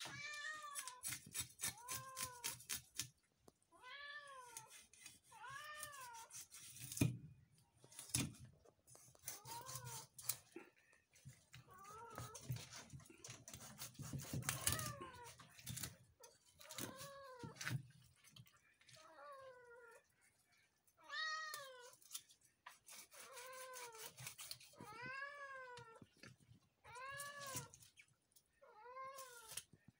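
A cat meowing over and over, a call every second or two, each meow rising then falling in pitch. Underneath are short scraping clicks of a knife scaling a fish on a wooden block.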